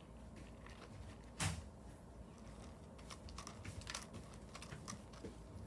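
A kitten scratching and shuffling in a litter box: a string of small irregular clicks and scratches, with one louder knock about a second and a half in.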